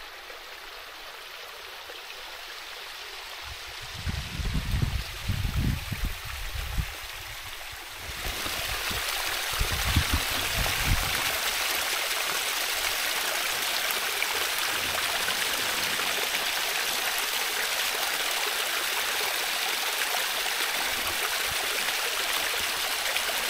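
Small stream running over a stony bed with a steady rushing and splashing, louder from about eight seconds in. A few low rumbles come about four and ten seconds in.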